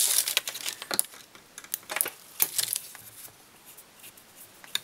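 Scattered light clicks and ticks of fly-tying tools being handled at the vise as the thread is whip-finished and cut off, with a quick cluster of them at the start and single clicks after.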